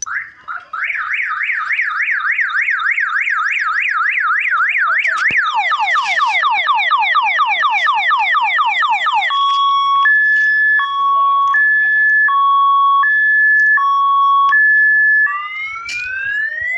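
Very loud multi-tone electronic bicycle siren horn stepping through its sounds: a fast rising-and-falling warble, then quick falling sweeps about four a second, then a two-tone hi-lo alternating slowly, then a slow rising wail near the end.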